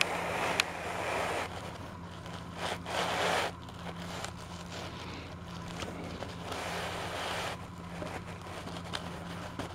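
Hands moving plastic toy figures right by the microphone: irregular rustling scrapes in several short spells, with a sharp click about half a second in, over a steady low hum.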